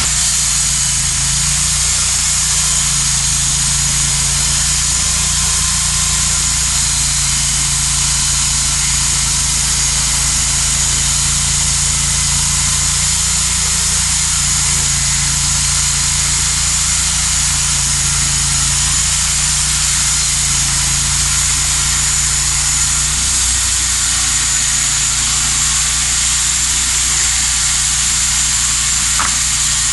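Portable band sawmill running steadily: the engine hums under load while the band blade cuts through a log with a constant high hiss, without a break.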